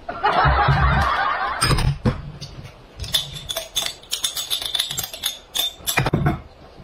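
Tableware handled at a meal: rice tipped from a small bowl into a glass bowl with a rustling scrape and a few soft knocks. From about three seconds in, a run of quick, light clinks follows as chopsticks dig in a small glass jar.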